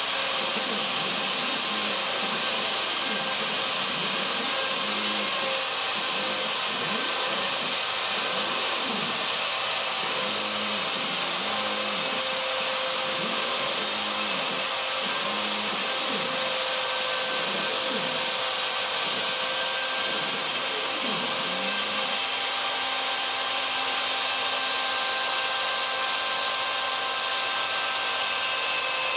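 Craftsman 12A 2 hp router on a CNC Mogul machine spinning at a steady whine while its bit routes grooves into a cedar fence picket. Underneath, the machine's drive motors hum in shifting pitches as the gantry moves, settling into one steady hum about three-quarters of the way in.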